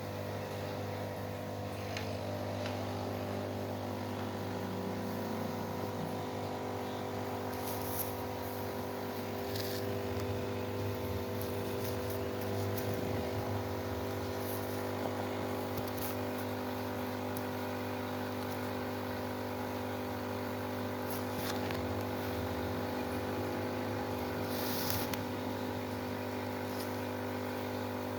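A steady machine hum made of a low drone and several constant tones, with a few brief high hissing sounds now and then, loudest about 25 seconds in.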